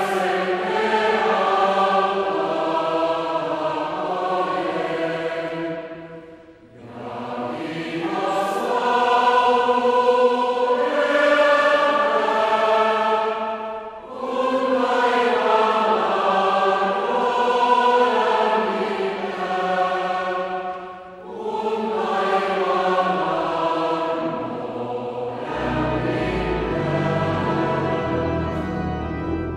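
Choir singing a hymn in long phrases, with short breaks between lines about every seven seconds; a low accompaniment joins near the end.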